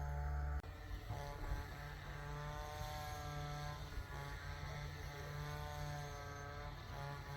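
An engine running steadily. A deep low hum under it drops away about half a second in.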